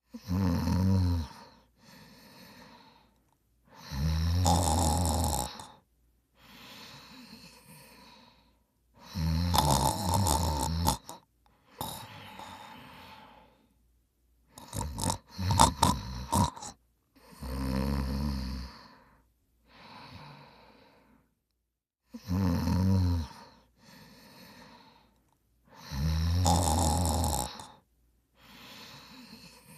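A person snoring in a steady rhythm: a loud snore, then a quieter breath, repeating about every four to five seconds. About halfway through, one snore breaks up into a few short, choppy snorts.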